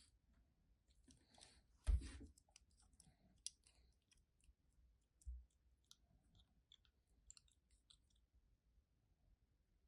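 Soap being crushed: a faint run of small crisp clicks and crackles, with one heavier thump about two seconds in and a softer dull thump a little after five seconds.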